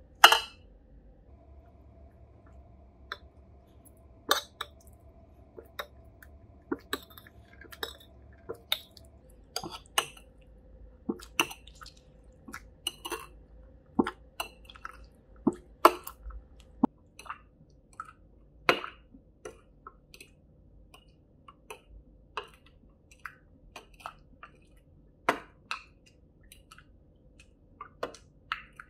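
Stainless steel muddler mashing orange segments with sugar in a glass tumbler: irregular knocks of the muddler against the glass, about one a second, with wet squishing of the fruit. The sharpest knock comes right at the start.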